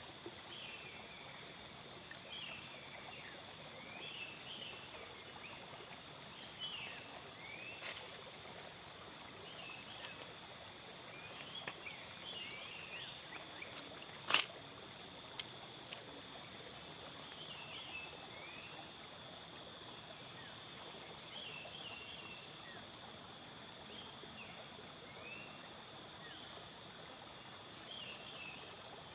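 Insects droning steadily at a high pitch, with crickets chirping in short pulsed trains every few seconds and scattered short, sliding chirps from other calling animals. One sharp click about halfway through.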